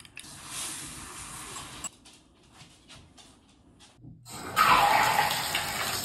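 Bathtub tap turned on, with water rushing from the spout into the tub from about four seconds in, loud and steady. Before it there are only a soft hiss and scattered faint clicks.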